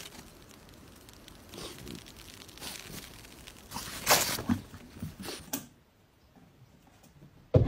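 Footsteps crunching through snow: an irregular run of crisp crunches, loudest about four seconds in. After a short lull there is a sudden thump near the end.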